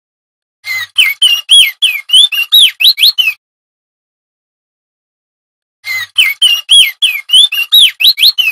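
Male crested white-eye (opior jambul) singing two fast runs of about a dozen sharp whistled notes each, swooping up and down, with a pause of about two seconds between the runs.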